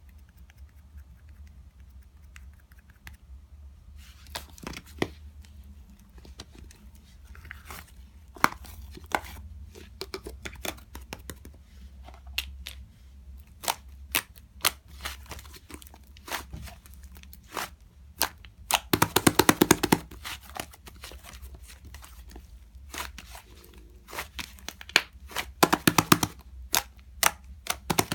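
Irregular sharp clicks, taps and crinkling crackles from something being handled close to the microphone, with two dense crackling bursts, one around two-thirds of the way in and one near the end, over a steady low hum.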